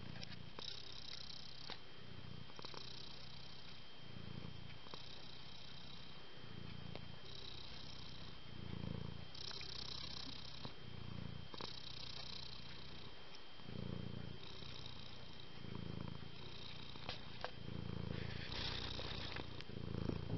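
Domestic cat purring steadily, the rumble swelling and fading with each breath about once every second or so.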